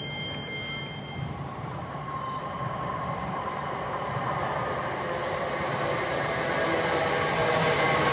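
Great Western Railway Class 387 Electrostar electric train approaching through the station, a rumble of wheels on rail with a thin whine, growing steadily louder as it draws near.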